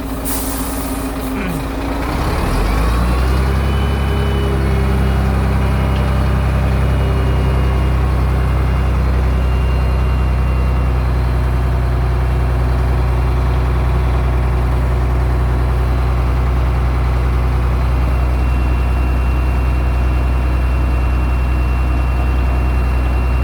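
Heavy diesel engine running loud and steady, with a short air hiss just after the start. About two to three seconds in, it revs up and then holds at the higher speed.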